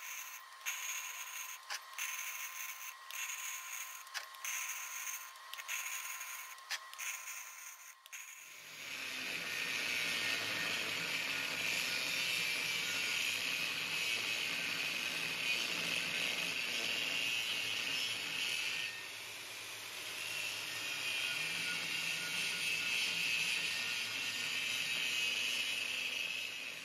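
Electric welding arc crackling for about the first eight seconds. After an abrupt change, an angle grinder grinds weld beads flat on a steel ring, running steadily until near the end with a brief easing about two-thirds of the way through.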